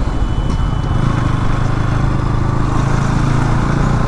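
Bajaj Pulsar NS200's single-cylinder engine running at a steady pitch, heard through a waterproof camera casing.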